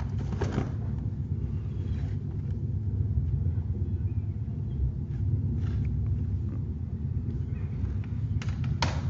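Steady low rumble, with a few faint clicks and rustles from plastic CD cases being handled.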